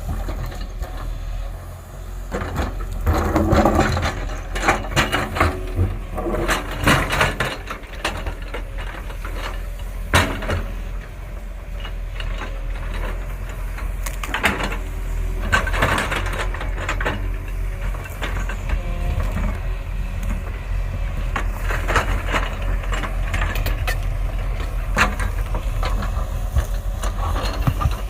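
Heavy construction machine's diesel engine running with a steady low rumble, with repeated metallic clanks and knocks of the machine at work and a few rises in engine pitch.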